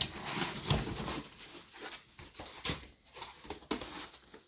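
Handling noise from unpacking: foam packaging and the cardboard box rustling as a foam insert is lifted out, with a few light knocks scattered through.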